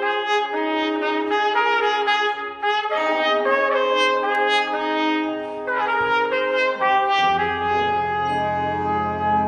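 Elementary school band playing a brass piece: held brass notes carrying a melody, with deep bass notes coming in about seven seconds in.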